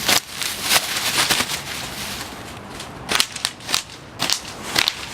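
Plastic bubble wrap being popped by hand: a string of sharp, irregular pops and snaps, with a short lull in the middle before the popping picks up again.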